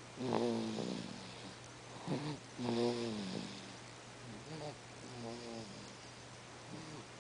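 Sleeping baby making short snore-like noises: a string of little squeaky, falling-pitched grunts through the nose and throat, the loudest about half a second in and about three seconds in, then softer ones.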